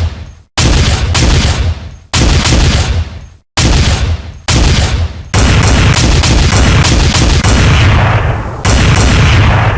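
Recorded gunfire sound effect of the kind played as a trading-indicator alert, set off again and again. Each burst starts sharply and fades over about a second; from about five seconds in the bursts come close together and overlap.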